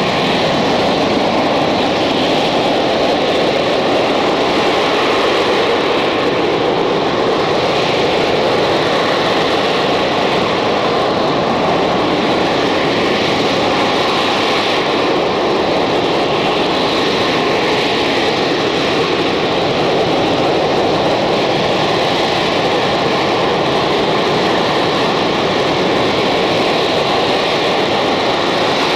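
Spanish AV-8B Harrier II's Rolls-Royce Pegasus turbofan running loud and steady at high power: an even rushing jet noise with a constant high whine, holding level without rising or fading.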